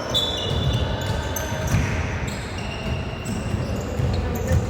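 A basketball bouncing on a court floor, with repeated dull thumps, amid short high squeaks of players' shoes.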